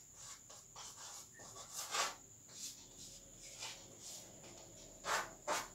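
Chalk writing on a chalkboard: a series of short, faint scratching strokes as a word is written, the last two near the end louder.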